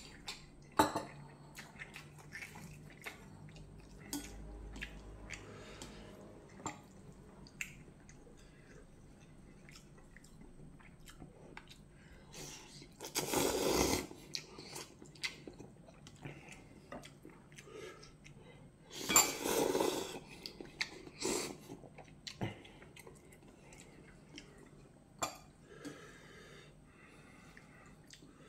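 A person eating instant ramen noodles: chewing, with chopsticks and a spoon clicking against ceramic bowls. Two loud slurps of noodles come about halfway through and again some six seconds later.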